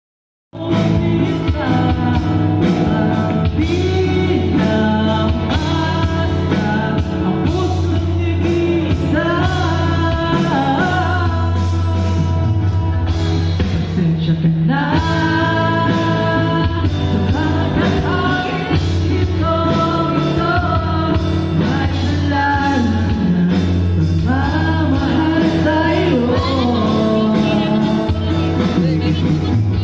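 Live acoustic group playing and singing a slow pop ballad intro: voices holding notes without clear words over a steady bass line and a regular light beat. The music starts suddenly about half a second in.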